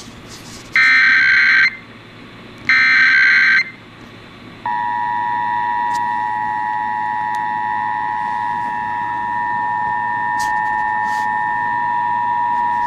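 Emergency Alert System test tones: two short bursts of the digital header code, about a second each, then about four and a half seconds in the steady two-tone attention signal (853 and 960 Hz) starts and holds. This is the tone alert that opens a national EAS test broadcast.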